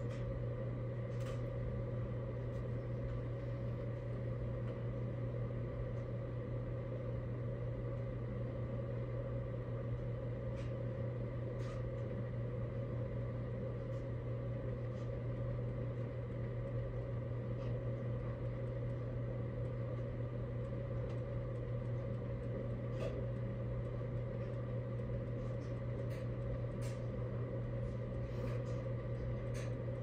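Steady low mechanical hum with a constant hiss, unchanging throughout, with a few faint clicks scattered through it.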